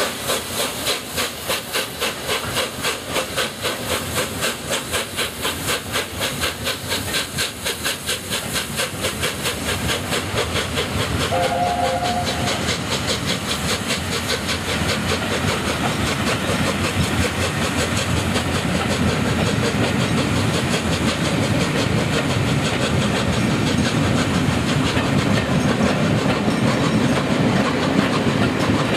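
LNER A4 Pacific steam locomotive pulling away with a passenger train, its three-cylinder exhaust beating evenly at about three chuffs a second, with steam hissing. The beats quicken and blur into a continuous rush as it gathers speed, while the carriage wheels add a low rumble over the rails. A short two-note whistle sounds about twelve seconds in.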